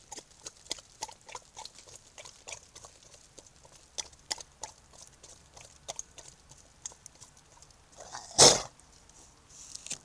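A large animal chewing food close to the microphone, with short wet clicks and smacks coming irregularly, two or three a second. Then one loud sneeze, a sharp blast of breath, a little over eight seconds in.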